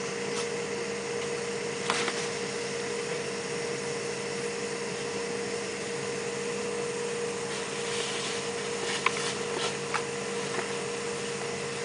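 Portable ventilation blower running with a steady drone and a constant mid-pitched hum, its duct feeding air into an open septic tank. A few light clicks and knocks of hand work sound around two seconds in and again near the end.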